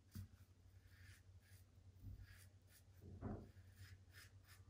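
Faint scraping of a Blackland Vector safety razor cutting lathered stubble in short strokes, about two a second.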